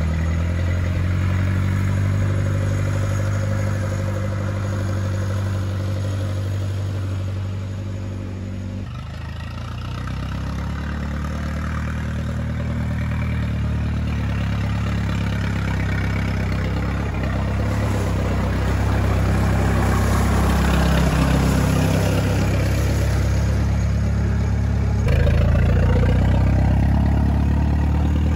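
1927 Farmall Regular tractor's four-cylinder engine running as the tractor is driven, its pitch rising and falling as it moves. The engine's carburetor mixture has just been fine-tuned for a smoother run. The engine sound changes abruptly near the end.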